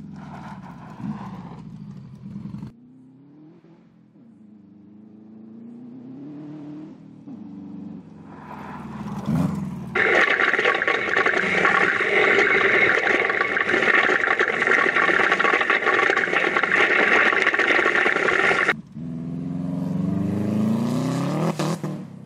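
Engine of an off-road buggy built on Subaru WRX STI running gear, accelerating and easing off on a dirt road, its pitch climbing and falling with the throttle, heard from the roadside. For about eight seconds in the middle it is replaced by a loud, dense roar of engine and wind heard from on board the buggy; near the end it climbs in pitch again as the car accelerates.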